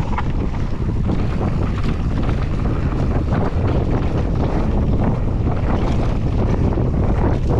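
Heavy wind buffeting on the microphone of a mountain bike ridden fast downhill on a dirt trail. Under it there is a steady rumble of tyres on dirt, with frequent small knocks and rattles from the bike over bumps.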